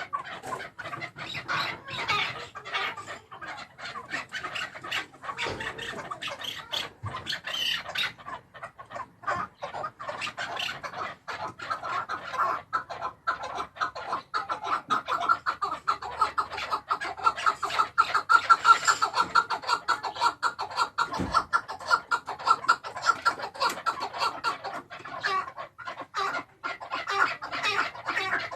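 Chukar partridge calling: a long run of short, rapid notes, several a second, swelling louder in the middle.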